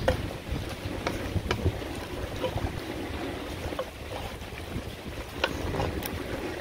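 Wooden spoon stirring and scraping pork belly in a thick sauce in an aluminium pot, with a few sharp knocks of the spoon against the pot, over a steady low rumble.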